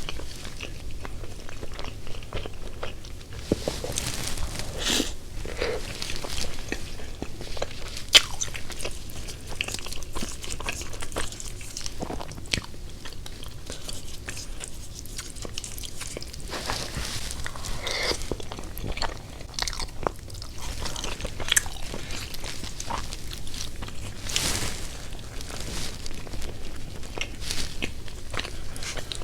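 Close-up eating sounds: a person biting and chewing food, with scattered crunches and wet mouth clicks.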